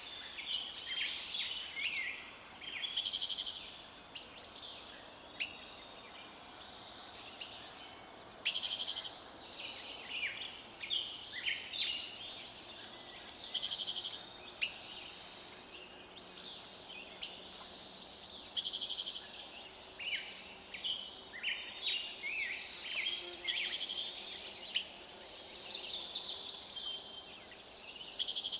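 Several songbirds singing and calling together: overlapping chirps and repeated trilled phrases, cut through every few seconds by a single sharp, high chip that is louder than the rest.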